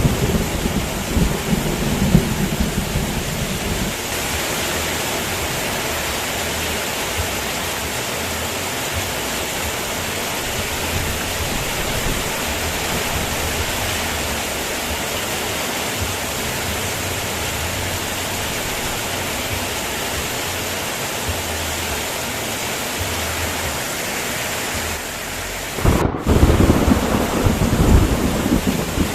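Heavy rain falling steadily, with thunder rumbling at the start and again near the end. Just before the last roll of thunder the sound briefly cuts out.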